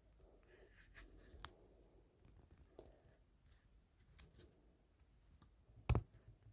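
Faint handling of a small plastic toy lamp figure, with a few soft clicks as its light switch is tried without success because the battery is flat, then one sharper knock near the end.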